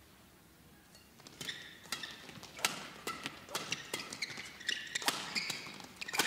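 Badminton rackets striking a shuttlecock in a fast doubles rally, starting about a second in, with sharp cracks in quick succession mixed with the short squeaks of court shoes.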